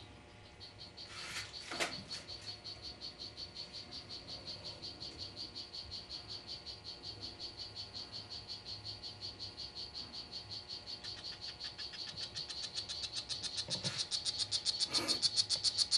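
Male strawberry poison dart frog (Oophaga pumilio, Chiriqui River locale) calling: a long, fast trill of high chirps, about five a second, growing louder toward the end.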